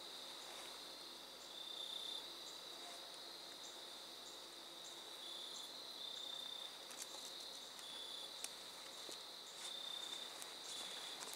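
Evening insect chorus: a steady high-pitched trilling with brief louder stretches every second or so, and a few faint ticks.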